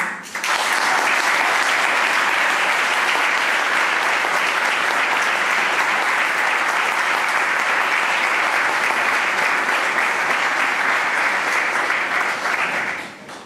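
Audience applauding: the clapping starts suddenly, holds steady for about twelve seconds and dies away near the end.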